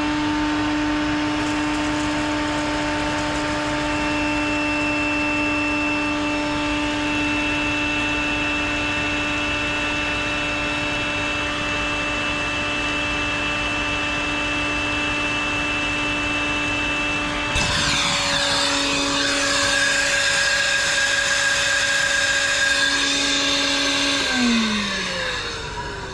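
Cordless wet/dry vacuum running with a steady high whine, its hose held on an air conditioner's condensate drain line to suck out a clog. About two-thirds of the way through, a rushing hiss joins in and the motor's pitch dips slightly. Near the end the motor is switched off and winds down.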